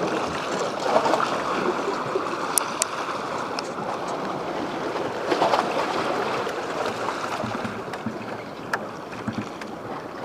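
Steady rushing of surf and wind at the shore, with a few faint clicks.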